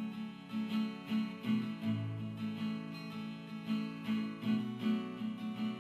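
Background music: acoustic guitar playing a steady run of plucked, repeating notes.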